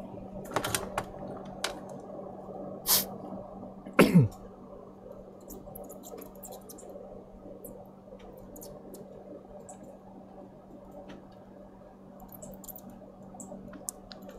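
Light clicks and taps of hand tools on a circuit board during desoldering with solder wick, over a steady low hum. One louder short sound comes about four seconds in.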